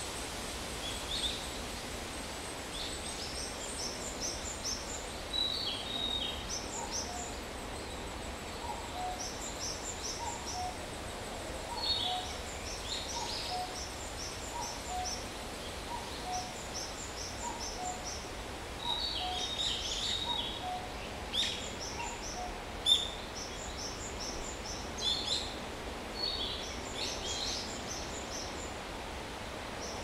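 Woodland birdsong: a common cuckoo calls its two-note cuckoo over and over, about once a second through the middle stretch, under higher, quicker songs and calls of other birds, among them narcissus flycatcher, brown-eared bulbul and Japanese tit.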